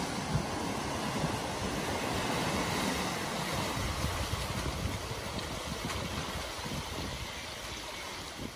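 Water splashing and rushing as a Skoda hatchback drives through a flooded ford, its wheels and front pushing a bow wave. A steady rush that swells through the middle and eases near the end as the car leaves the water.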